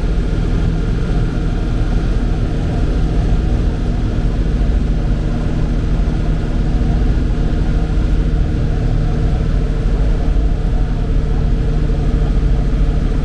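Engine running at a steady speed, a loud, even low rumble with a steady hum that does not rise or fall.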